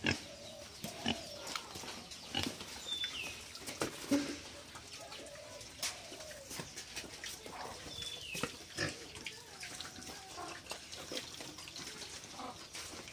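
Domestic pigs giving short, low grunts close by, with scattered clicks and knocks.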